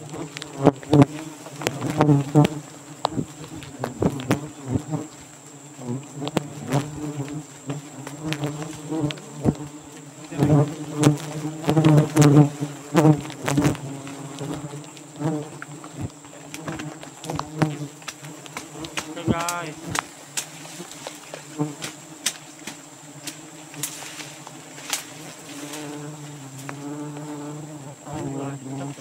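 A mass of Asian giant honeybees (Apis dorsata) buzzing around their open comb in a steady low drone that swells and fades. Many sharp ticks and taps sound over it, and a single bee whines past close by just before 20 seconds in.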